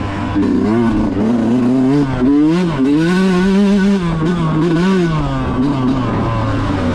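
Off-road motorcycle engine revving up and down as it is ridden hard, its pitch rising and falling repeatedly as the throttle is opened and closed.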